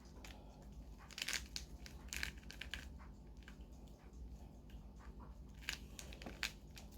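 Plastic mirror cube being turned quickly by hand: faint, irregular clicks and scrapes as its layers twist.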